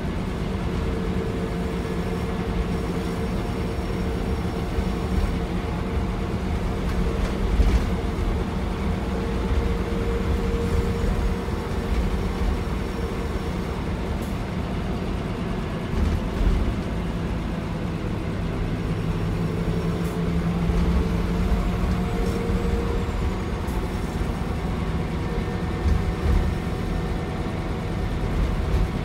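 Scania K340EB4 Irizar PB coach heard from inside the cabin at speed: the rear-mounted diesel engine drones steadily under road and tyre rumble, its pitch dropping in steps in the second half. A few short knocks and rattles from the body, the sharpest about a quarter of the way in.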